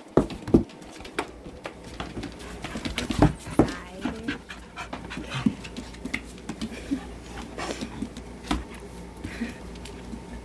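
Two dogs play-wrestling on a hard floor, panting hard, with frequent short sharp knocks and scuffles as they tussle.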